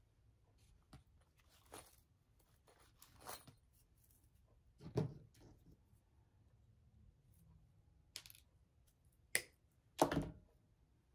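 Quiet, scattered handling sounds of craft work at a table: rustling, light clicks and soft thumps as things are picked up and set down. The loudest thumps come about five and ten seconds in, with a sharp click just before the second.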